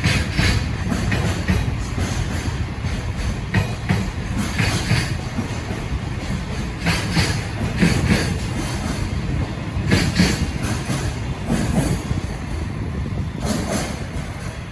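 Freight train hauled by an EF510 electric locomotive rolling along the rails: a steady low rumble of wheels, with sharp clatters every second or two.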